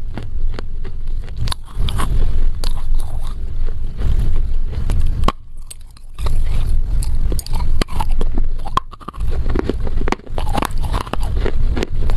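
Close-miked biting and chewing of a dry chunk of Chinese loess clay: dense sharp cracks and gritty crunches, with a short pause about five seconds in before a fresh bite.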